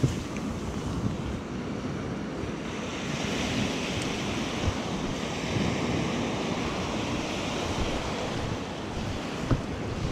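Small Atlantic surf breaking and washing up a sandy beach, with wind buffeting the microphone.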